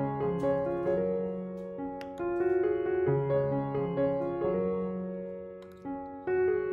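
Background piano music: held notes and chords. It fades briefly, then a new chord comes in near the end.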